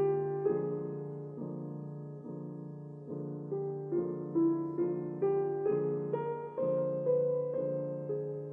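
Slow background piano music: a melody of single struck notes, about two a second, each ringing and fading, over a steady low note.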